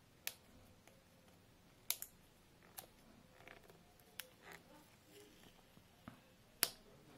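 Fingernails picking at the tape seals on a clear plastic earphone case: several sharp plastic clicks, the loudest near the end, with faint scratching and rustling between.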